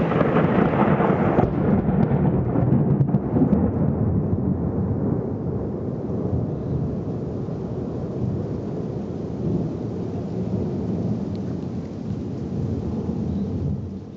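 A long clap of thunder: a sharp crack at the start, then a low rolling rumble that slowly fades over about ten seconds before cutting off near the end.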